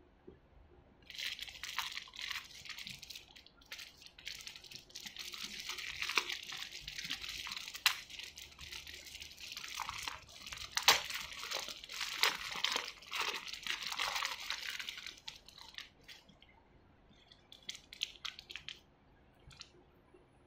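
Thin clear plastic bag crinkling and rustling as hands work it open, with a few sharp crackles, for about fourteen seconds; then a few light ticks of plastic being handled near the end.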